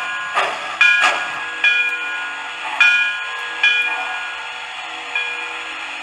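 Protosound 2.0 sound system of an MTH O-gauge Pennsylvania H10s model steam locomotive playing its steam sounds: a series of sharp chuffs, each with a short ringing tone. The chuffs come close together at first, then space out and get quieter, with a faint steady tone under them.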